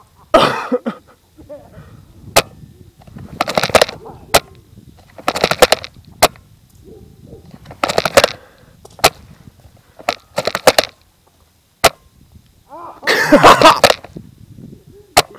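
Airsoft gunfire: short clusters of rapid sharp shots or BB impacts about every two seconds, with single sharp cracks between them and a longer, denser cluster near the end.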